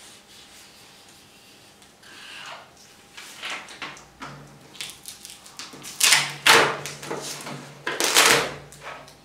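Sheets of paper being handled and moved on a tabletop: rustling that starts about two seconds in and grows, with two loud rustles around six and eight seconds in.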